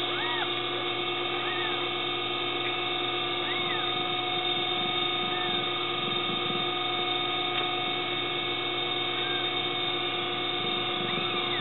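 Newborn kittens mewing while they nurse: about half a dozen short, faint, high squeaks that each rise and fall in pitch, spaced irregularly. Under them runs a steady mechanical hum that holds several fixed tones and is louder than the mews.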